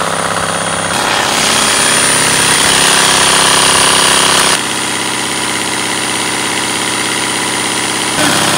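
Cordless drill turning an offset crank that shakes a wooden-framed hardware-cloth soil screen, the frame and mesh rattling rapidly as dirt sifts through. The sound is loud and steady, with abrupt shifts in level and tone about a second in, at about four and a half seconds and near the end.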